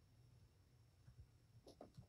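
Near silence: room tone with a faint low hum and a couple of faint soft ticks near the end.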